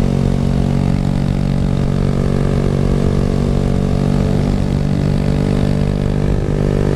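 Honda Grom's 125 cc single-cylinder four-stroke engine running loud through an aftermarket exhaust with its removable baffle taken out, holding a steady pitch while cruising.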